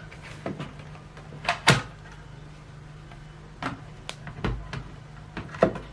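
A few scattered clicks and knocks of a plastic device or its box being handled, the sharpest pair about one and a half seconds in and a dull thud near the end, over a faint steady low hum.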